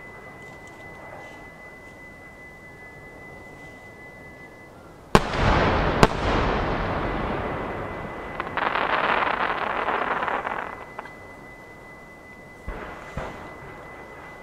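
A pair of 12-inch aerial firework shells burst about a second apart with two sharp bangs, and the rumble echoes and fades over several seconds. Midway there is a stretch of crackling from the bursting stars. Near the end come two softer thumps as the next pair of shells is fired from the mortars.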